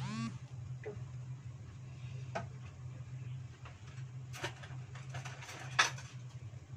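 A metal pot lid squeaks briefly as it is set on an aluminium pot. Then light, irregular clicks and taps come from the lidded pot of sempol boiling on a gas stove, the sharpest about six seconds in, over a steady low hum.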